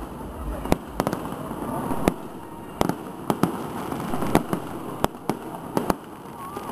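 Aerial fireworks going off: a string of sharp bangs and pops at irregular intervals, about two or three a second, over a steady background noise.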